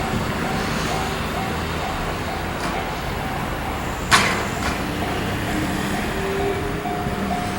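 Japanese railroad crossing warning bell ringing steadily at about two strokes a second, over a steady vehicle rumble, with one sharp knock about four seconds in.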